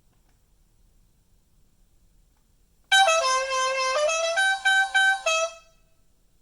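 Built-in novelty sound effect from a walkie-talkie app, played on a phone: a buzzy, horn-like tune of several stepped notes, starting about three seconds in and lasting under three seconds.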